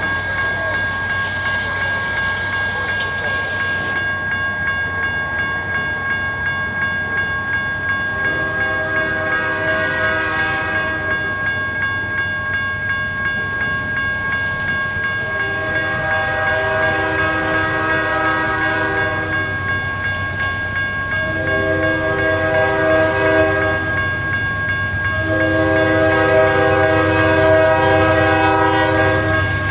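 CSX diesel freight locomotive's air horn sounding four blasts, the third shorter than the others, in the long-long-short-long grade crossing signal. Under the horn, the low rumble of the locomotive and its train grows louder as it draws near.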